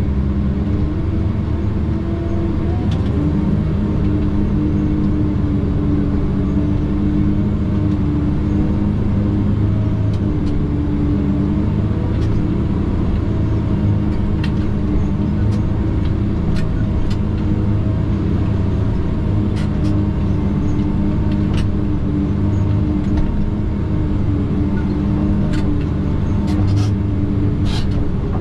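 Tigercat 610E skidder's diesel engine running at a steady speed, with scattered light clicks and rattles, several close together near the end.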